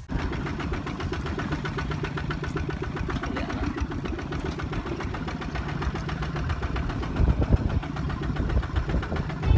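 Small engine running steadily with a fast, even chugging beat, with a few louder knocks about two-thirds of the way through.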